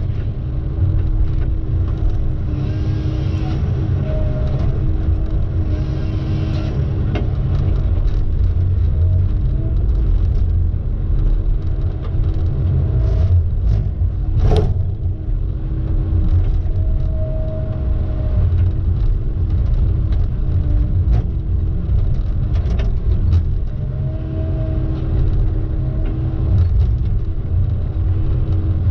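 A heavy engine running steadily with a deep rumble, a constant hum over it and short higher tones that come and go. There is a single sharp click about halfway through.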